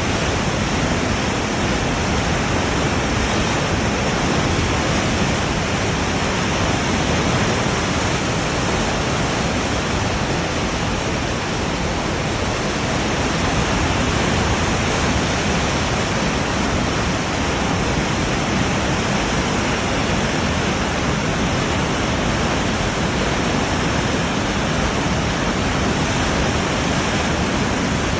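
Waterfall: water falling and splashing in a loud, steady rush.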